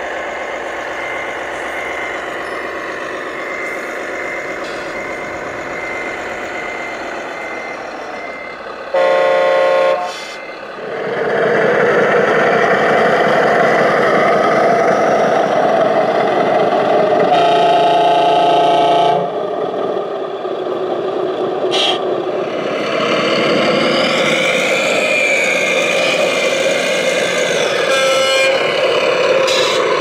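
Radio-controlled scale model trucks running, a steady mechanical hum whose pitch shifts, broken by two long horn blasts, about 9 seconds in and about 17 seconds in.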